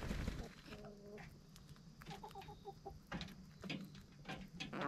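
Backyard chickens clucking softly as they feed, in short calls and a quick run of clucks, with scattered sharp ticks of pecking. A thump right at the start.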